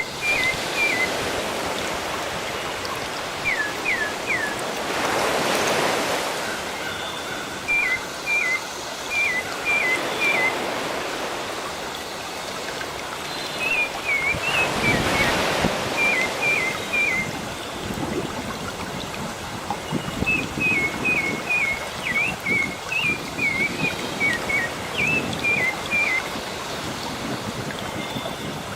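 Sea waves washing in, two larger waves swelling about five seconds and fifteen seconds in, while a small bird chirps in quick runs of three or four short notes.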